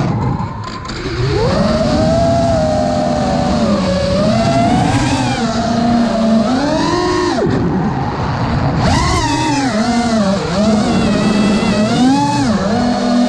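FPV racing quadcopter's four brushless motors and propellers whining, heard from the onboard camera. The pitch rises and falls again and again with the throttle, with a brief drop about a second in before it climbs again.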